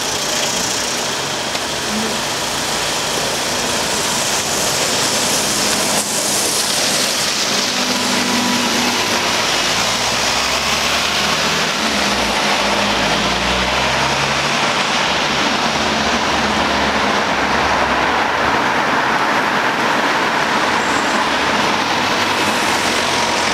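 Street traffic noise with a double-decker bus's diesel engine running, its low engine note strongest and shifting in pitch around the middle.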